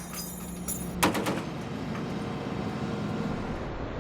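A sharp bang about a second in, then steady machine noise with a low hum.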